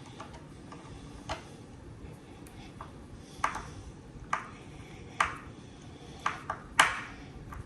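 Irregular sharp metallic clicks, about seven, the loudest near the end, as a Phillips screwdriver turns a screw into a subwoofer's threaded insert to fit an isolation foot.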